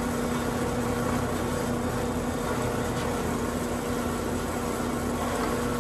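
Benchtop drill press running steadily with an even motor hum, its Forstner bit spinning freely before it is brought down into the plywood.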